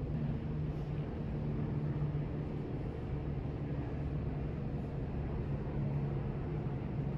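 A steady low mechanical hum with a held tone and a rumble beneath it, like a running engine or machinery.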